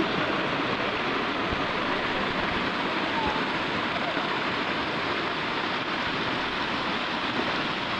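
Steady rushing of whitewater in a river rapid.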